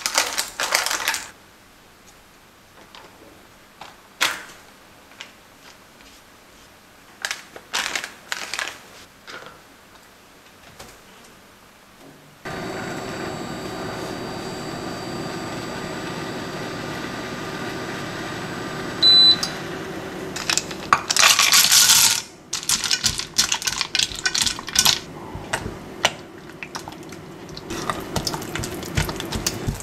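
A spatula scrapes and taps in short, separate strokes as thick caramel is spread in a lined baking pan. About twelve seconds in, a glass-top electric hob starts a steady hum with a faint whine, and a short high beep sounds about seven seconds later. Near the end there is a brief loud rustling noise, then a spatula clicks and scrapes as melted chocolate is stirred in a saucepan.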